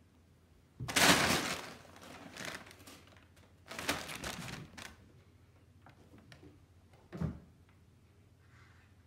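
Brown kraft packing paper crinkling and rustling loudly in two bursts as cats pounce and scramble in it, followed by a single dull thud about seven seconds in.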